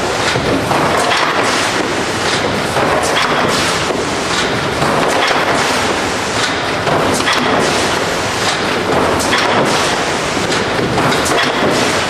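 iPak TF200D tray former running: a steady, loud mechanical clatter with many small knocks and clicks from the machine as it forms corrugated trays.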